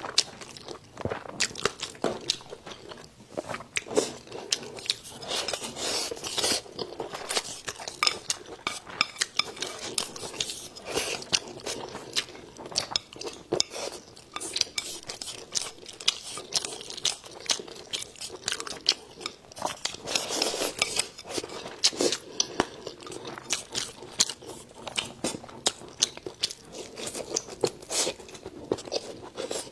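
Close-up eating sounds: a person biting and chewing crunchy food, with a steady run of crisp crunches and wet chewing, and now and then a light clink of chopsticks or dishes.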